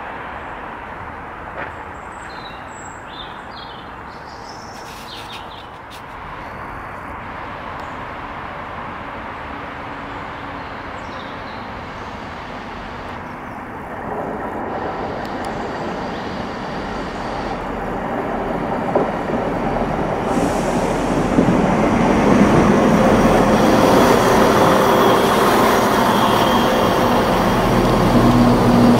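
Class 170 Turbostar diesel multiple unit arriving: its diesel engine note grows steadily louder as it approaches and is loudest over the last several seconds as it draws alongside. A few bird chirps sound in the first few seconds.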